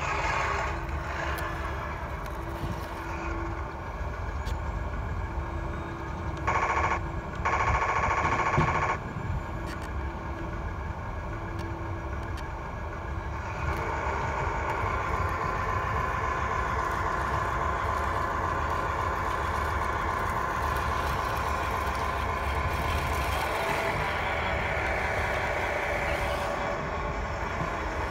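1/16 scale RC Panzer IV tank driving over rough ground: a steady mechanical running sound of its drive motors and gearing, with a whine. There is a louder stretch of a couple of seconds about seven seconds in.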